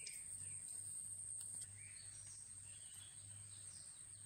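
Quiet background: a steady high-pitched insect drone with a few faint bird chirps over a low hum.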